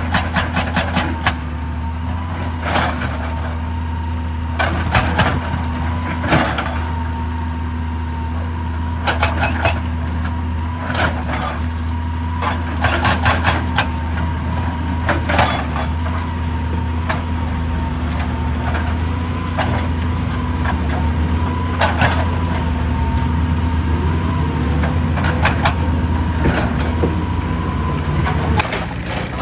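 JCB excavator's diesel engine running steadily with a constant whine, under repeated sharp knocks and clatters of rock breaking, some coming singly and some in quick runs. The sound changes abruptly near the end.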